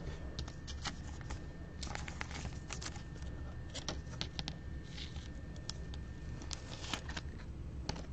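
Scattered light clicks and rustles of trading cards and plastic card holders being handled, over a low steady hum.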